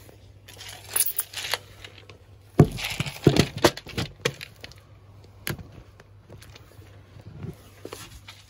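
Handling noise from plumbing work on a toilet: scattered knocks and clatter of tools and parts, with a busy run of knocks and scrapes from about two and a half to four and a half seconds in, the loudest a sharp knock at its start.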